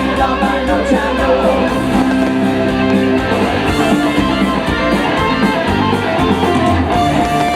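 Live rock band playing an instrumental passage with guitars to the fore over a steady beat.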